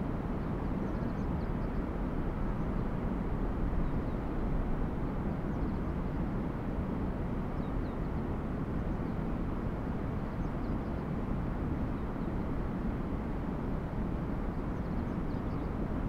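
Steady low outdoor background rumble at an even level, with a few faint, short high chirps scattered through it.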